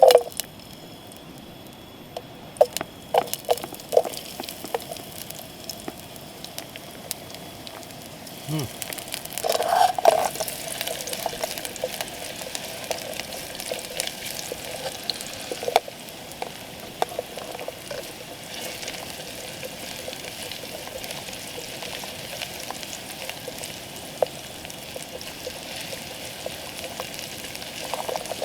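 Camp cookware being handled, with sharp clinks and knocks in the first ten seconds. From about ten seconds in there is a steady hiss, with a few more clicks over it.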